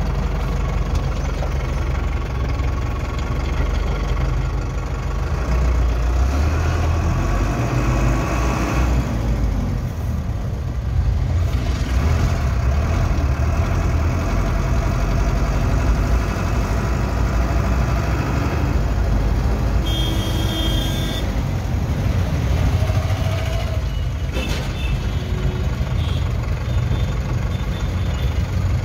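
Truck engine running steadily while driving, heard from inside the cab, with road noise.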